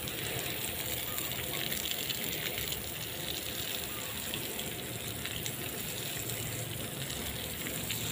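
Garden hose spraying water over a garden bed, the hose end pinched by hand so the water fans out: a steady hiss of spray splashing onto the soil and plants.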